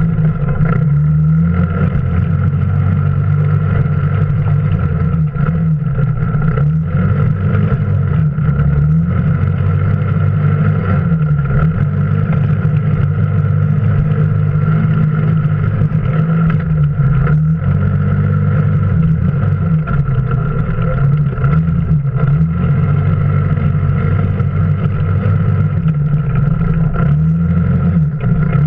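Off-road vehicle engine running while driving over rough ground, its pitch rising and falling with the throttle, with a steady high whine over it.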